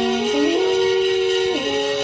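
Several alphorns playing long held notes together in harmony, the chord shifting about half a second in and again near the end. Underneath runs a steady high ringing from coins being swirled around earthenware bowls (Talerschwingen).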